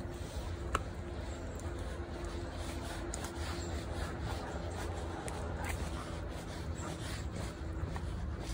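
Footsteps on a paved path from a Belgian Malinois walking on a leash and the person walking with it, heard as scattered light ticks and scuffs, with one sharper click about a second in. A steady low rumble of wind and handling sits on the microphone throughout.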